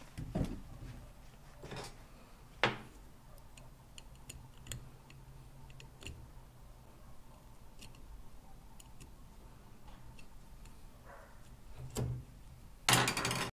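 Small metal clicks and taps of a screwdriver and fingers working the oil filler plug into a hydraulic bottle jack's body, with a few duller knocks as the jack is handled and one sharp click about two and a half seconds in, over a steady low hum. A short loud noise comes near the end.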